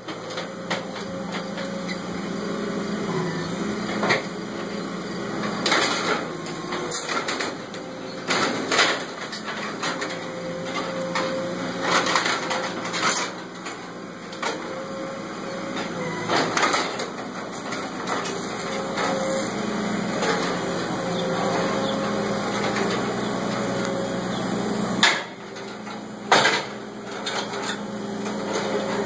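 New Holland L170 skid steer's diesel engine running steadily under load as its grapple fork tears into a fallen tree and a wooden barn frame. Repeated sharp cracks and crashes of breaking wood and roofing tin come every few seconds, the loudest two near the end.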